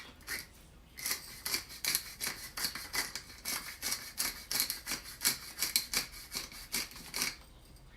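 Hand-twisted pepper mill grinding black peppercorns: a fast run of crunchy, clicking strokes, about five a second, that stops shortly before the end.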